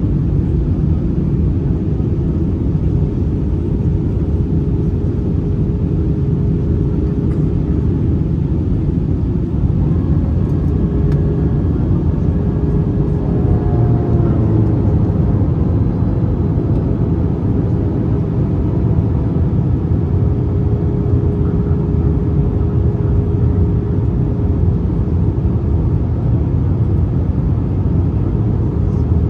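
Steady in-cabin rumble of an Airbus A321-231 airliner in flight on its descent, made by airflow and its IAE V2500 turbofan engines, with a steady low hum running through it.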